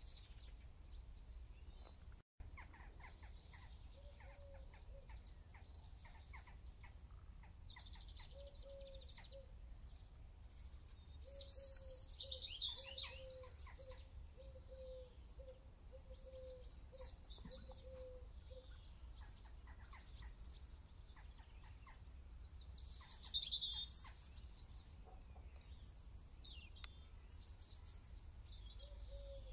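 Birds chirping and singing, faintly, with a run of short repeated lower notes in the middle and two louder bursts of song about twelve and twenty-three seconds in, over a steady low hum.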